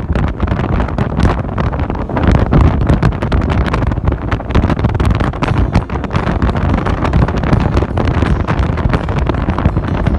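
Heavy wind buffeting on a phone's microphone while riding a motorbike at speed, a loud, constant rushing with rapid flutter, with the bike's running and road noise mixed underneath.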